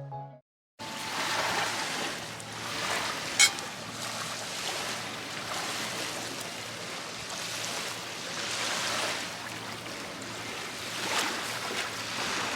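Sea waves washing in, swelling and fading every couple of seconds, with one short sharp click about three seconds in.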